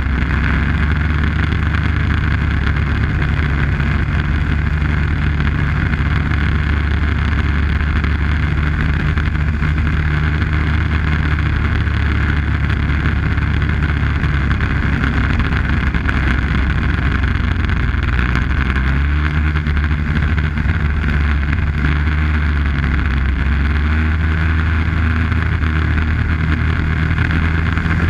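Arctic Cat snowmobile engine running steadily at trail cruising speed, its pitch shifting slightly about two-thirds of the way through as the throttle changes.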